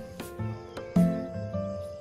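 Background music with a beat: sharp drum hits, low bass notes and held tones.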